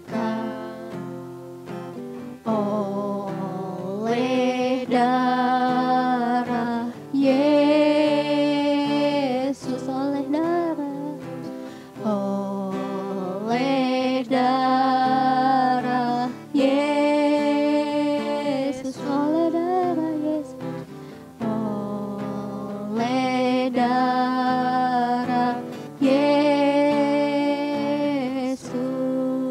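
A worship song: a voice singing long phrases over strummed acoustic guitar.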